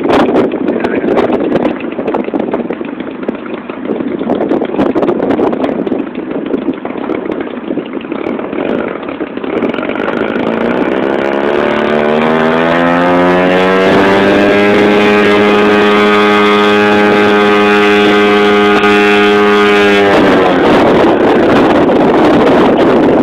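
Wind buffeting the microphone, then a small model airplane engine comes in, its pitch climbing as it revs up and then holding a steady high note. The engine sound cuts off abruptly near the end, leaving the wind noise.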